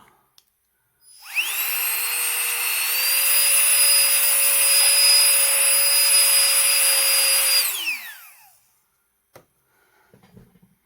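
Handheld electric air duster blowing dust. It spins up about a second in and runs with a high whine over a rush of air, rising a little in speed partway through. After about six seconds it is switched off and winds down with a falling whine.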